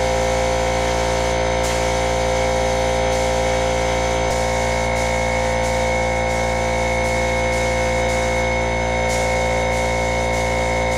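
Steady hum of a garage ventilation fan, with the air hiss of a paint spray gun swelling and fading as the trigger is worked.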